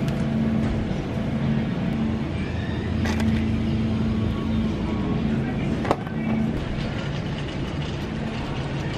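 Grocery store background: a steady low hum with faint voices, brief rustling and handling noises, and one sharp click about six seconds in.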